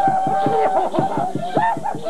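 Live music for a folk dance: a gliding melody over a quick, steady rhythmic accompaniment.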